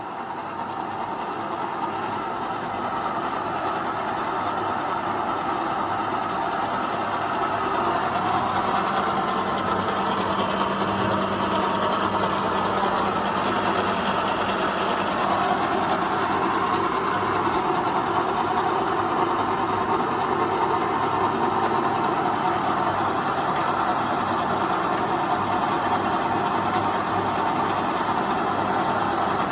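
Victoria universal milling machine running with a steady mechanical hum, growing louder over the first several seconds and then holding level.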